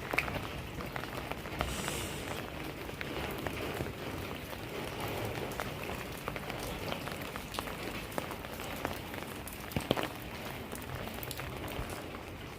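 Steady rain falling, with many scattered drip ticks and a couple of sharper knocks, one right at the start and another about ten seconds in.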